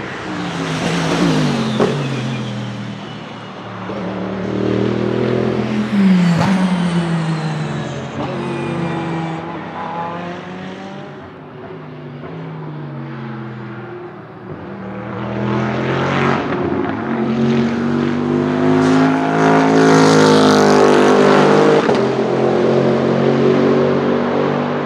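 Bentley Continental GT3 race car's 4.0-litre twin-turbo V8 passing at speed several times: the engine note drops in pitch as it goes by, then climbs again under acceleration. The loudest stretch is about 16 to 22 seconds in.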